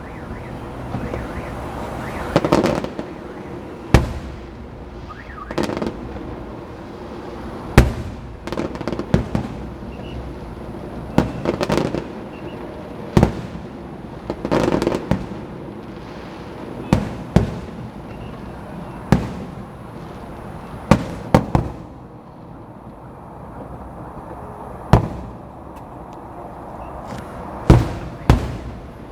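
Aerial fireworks going off in a show: a string of sharp bangs every second or two, some followed by brief crackling, over steady crowd noise.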